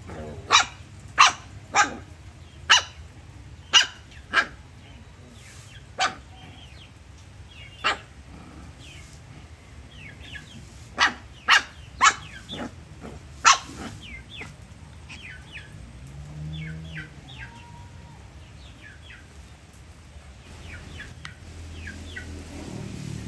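A dog barking in single sharp barks, several in the first few seconds and a quick run of four about halfway through, over a steady low background. A low engine-like rumble builds near the end.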